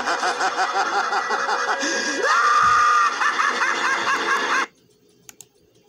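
Cartoon Joker laughing, played back through a computer's speaker: rapid cackling that rises into a held shriek about two seconds in, then more cackling that cuts off suddenly near the end.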